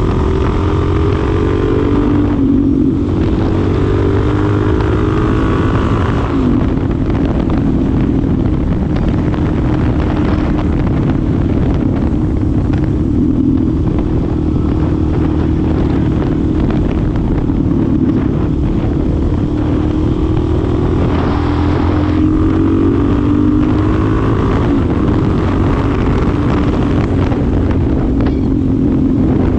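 Suzuki DR-Z4SM supermoto's single-cylinder engine under way, its pitch rising and then dropping back again and again as it pulls through the gears, with wind noise on the microphone.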